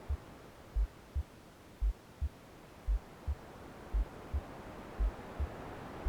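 Womb-style soundscape: a deep, muffled heartbeat in lub-dub pairs, about one double beat a second, over a low white-noise hiss that fades and then swells again.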